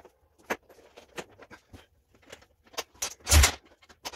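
Recoil starter of a 2000 Honda FourTrax 300 ATV being pulled: light clicks and knocks, then one short, loud rushing pull about three seconds in, the engine turning over without firing.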